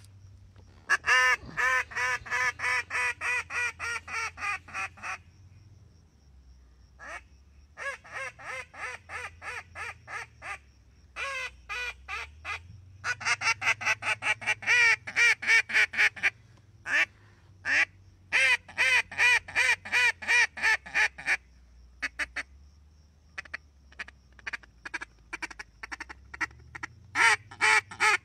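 Reyoka mouth-blown duck call sounding runs of rapid quacks, about three to four a second, in several bursts of one to four seconds with short pauses between them.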